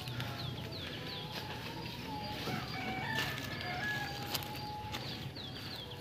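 A rooster crowing in long, stepped notes, with a small bird chirping repeatedly in short falling calls.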